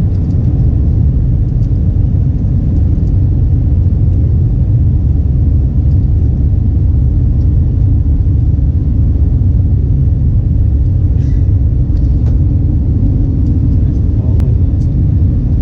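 Airbus A320 cabin noise: a loud, steady low rumble of engines and airflow, with a few faint ticks.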